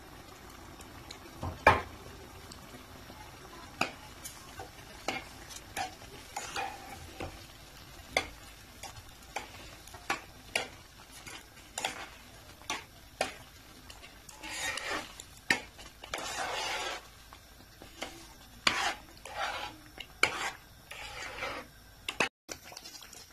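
A metal spoon stirring and scraping a pan of semolina cooking in milk and sugar, with repeated clinks and knocks of the spoon against the pan, the loudest about two seconds in, and longer scraping strokes a little past the middle. The thickening halwa bubbles and splutters in the pan.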